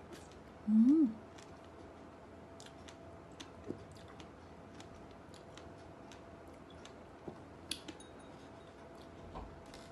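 A person chewing a bitten strawberry, with faint wet mouth clicks scattered throughout. About a second in there is a short, loud hummed 'mm' that rises and then falls in pitch.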